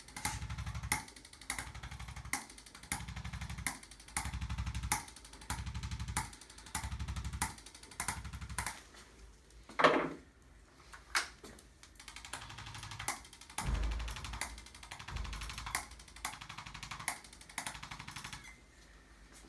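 Handheld chiropractic vibration instrument tapping rapidly against the spine in repeated short bursts, each under a second long and about a second apart, to loosen the joints. The bursts pause for a few seconds midway, with one sharper knock.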